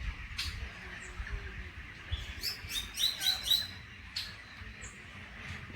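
Birds chirping, with a quick run of short, high chirps in the middle.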